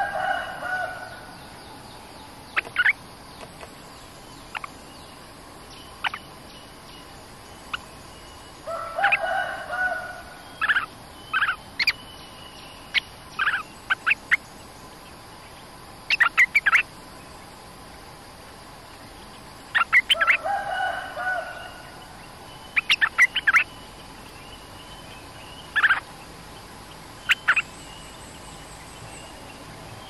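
Bulbuls (นกดอกแตง) calling at a decoy cage: a short, low call phrase three times, near the start, about nine seconds in and about twenty seconds in, with many sharp single notes in between.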